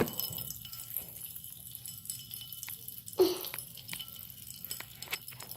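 Magic bath crackles in water, giving a faint fizz with scattered small crackling pops. There is one short louder noise about three seconds in.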